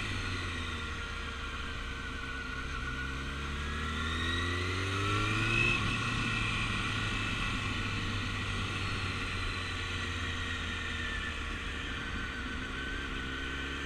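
Motorcycle engine running at low speed, its pitch rising as it speeds up about four to six seconds in, then holding steady.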